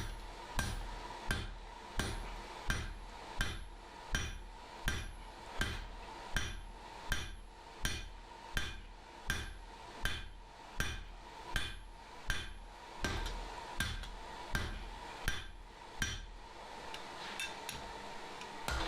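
Blacksmith's hand hammer forging steel tong stock on an anvil: even, ringing blows about one and a half a second, turning to lighter, quicker taps near the end, over a faint steady hum.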